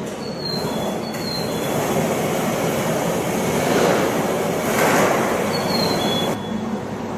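A train running on the rails, with a steady rumble and a few brief high wheel squeals. The noise swells about two-thirds of the way through, then drops suddenly near the end.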